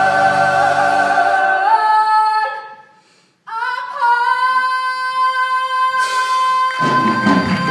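A chorus holds a sung chord that steps up in pitch and then fades out. After a brief pause a single female voice comes in and holds one long final note. Near the end, audience applause breaks in over the held note.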